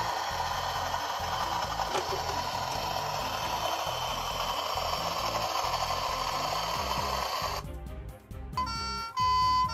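Toy rescue helicopter's electronic rotor sound effect: a steady whirring hiss over a choppy low beat, which cuts off about eight seconds in. Then loud electronic beeps alternate between two pitches.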